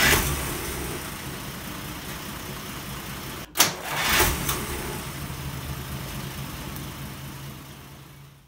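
1938 Chrysler's flathead engine starting and then running steadily, fired up to check the ignition dwell after the points were adjusted. There is a brief break with a sharp click about three and a half seconds in, and the sound fades away near the end.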